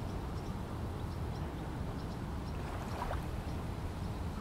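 Steady low background rumble, with faint short high chirps scattered through it and a brief faint sound about three seconds in.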